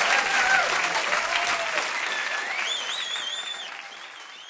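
Live audience applauding, the clapping fading away toward the end, with a high wavering whistle from the crowd about halfway through.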